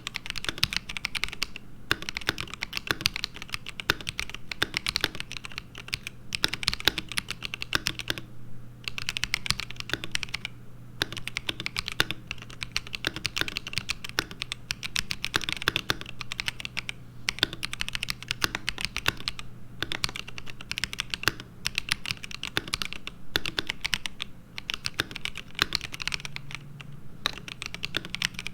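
Typing on an ASUS ROG Azoth mechanical keyboard with stock, factory-lubed ROG NX Linear Red switches: rapid keystrokes in runs of a second or two, with short pauses between them.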